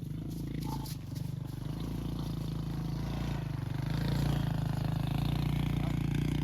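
A small engine running steadily with a fast even pulse, growing a little louder past the middle.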